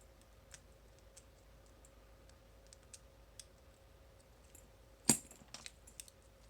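Faint, scattered clicks of lock picks working the spool pins of a Club-made American 1100-clone padlock, then a louder clack with a few quick clicks about five seconds in as the lock is picked open.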